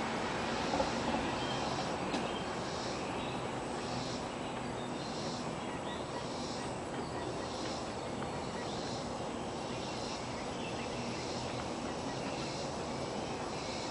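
Outdoor ambience of insects chirping in a regular rhythm, about one to two chirps a second, over a steady hiss, with a few faint knocks in the first couple of seconds.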